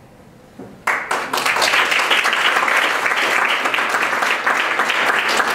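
Audience applauding: after a brief quiet, many hands start clapping suddenly about a second in and carry on at an even level.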